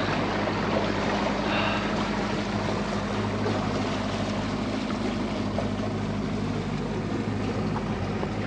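Evinrude E-TEC outboard motor running steadily as the boat gets under way, a constant hum with a steady hiss of water over it.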